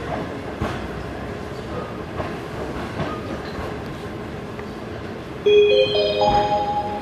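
Low rumble of a passenger coach rolling slowly along the platform, heard from aboard, with a few sharp wheel clicks over rail joints. About five and a half seconds in, a station public-address chime starts: a rising run of four notes, louder than the train.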